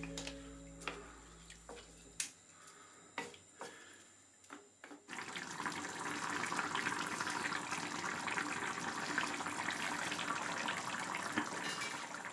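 Chicken and tomato casserole sauce simmering in a pan: a steady bubbling hiss that sets in about five seconds in, after a few light clicks and knocks. Background music fades out over the first two seconds.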